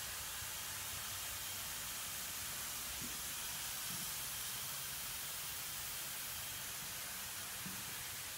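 Steady, even hiss of air noise, strongest in the high range, with a faint low hum underneath.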